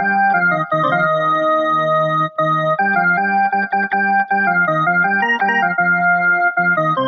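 Small electronic keyboard played by hand, a melody in sustained tones that hold steady rather than fading, over low held notes, changing every half second to a second or so with a few brief gaps between notes.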